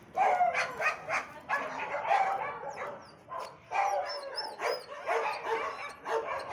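Dogs tied to a kennel gate barking and yelping over and over in short repeated bursts: the distressed calls of freshly abandoned dogs.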